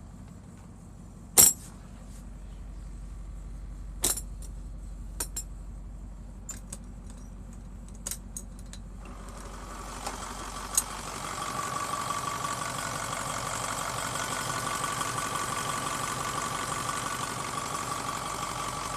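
Turbocharged Caterpillar 3208 V8 diesel running at idle. Several sharp clicks and knocks come in the first half. About halfway through, the engine grows louder, with a steady whine over its running.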